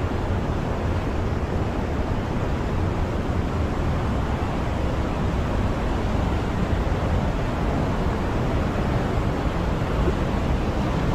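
Fast-flowing mountain river rushing over rocks, a steady, unbroken wash of water noise.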